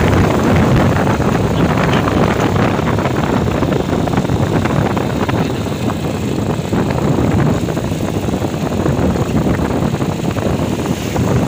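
Steady wind buffeting the microphone on a moving motorcycle, with the bike's engine and road noise beneath.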